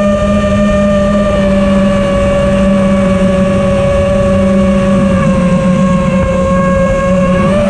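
Quadcopter's electric motors and propellers whining at a nearly steady pitch in forward flight, heard through the onboard camera's microphone with rough low wind noise underneath.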